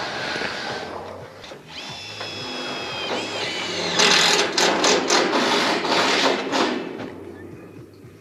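A power drill or screw gun runs in two spells while roofing iron is being fixed. First comes a steady whine of about a second and a half that sags as it stops, then a louder, rougher run of about three seconds.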